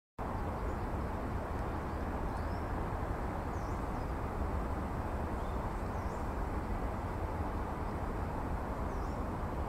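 Steady low rumble of distant traffic, with about five faint, short, high bird chirps scattered through it.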